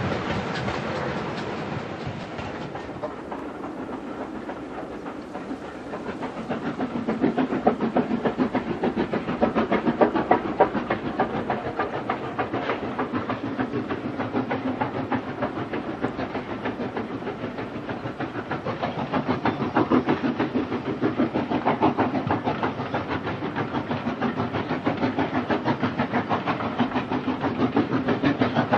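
A train rolling along the rails, then the Southern Railway S15 class 4-6-0 steam locomotive No. 825 working a passenger train, its exhaust beating in a quick, steady rhythm. The sound grows louder about six seconds in.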